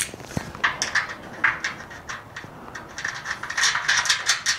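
Bolt and nut clicking and scraping against the workbench's side rail as the bolt is fitted through the lined-up holes and the nut is started, with a quicker run of small clicks in the second half.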